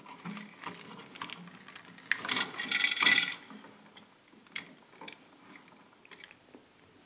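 A light switch and hand screwdriver being handled while the switch is wired: light scattered clicks, and about two seconds in a louder scraping rattle lasting about a second.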